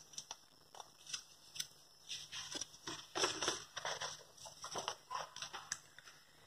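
Notebook paper rustling and crinkling as a hand handles the sheet and turns a page, with scattered small crackles. The rustling is loudest about three seconds in.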